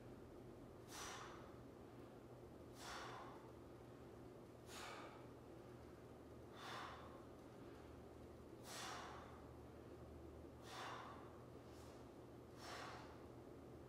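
A man's sharp breaths out, seven of them about two seconds apart, one with each rep of a single-leg hip bridge with a mini band around the knees.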